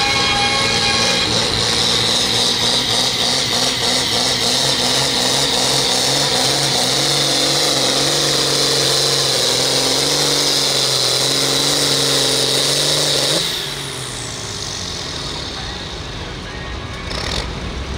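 Hot stock John Deere pulling tractor's diesel engine running hard under load as it drags a weight-transfer sled, its note wavering slightly. About 13 seconds in the engine sound stops abruptly as the pull ends, leaving quieter background noise.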